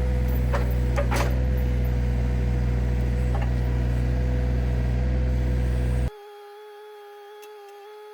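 Mini excavator's diesel engine running steadily, with a few faint knocks about a second in. The engine sound cuts off abruptly about six seconds in, leaving a quiet steady hum.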